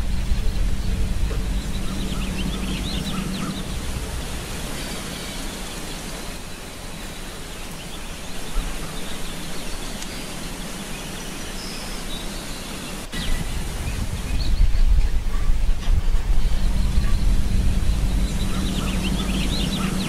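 Outdoor nature ambience: a steady rushing noise with a low rumble, louder at the start and over the last few seconds, and short bird chirps at a few points.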